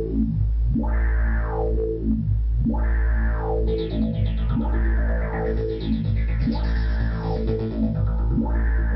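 Recorded rock music playing: a deep, steady bass drone under a heavily effected sweep that falls in pitch and repeats about every two seconds.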